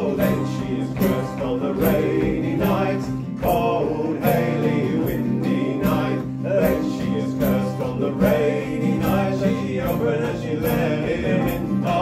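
An acoustic folk band plays a traditional song live: two acoustic guitars and a banjo strum a steady rhythm while male voices sing together in harmony.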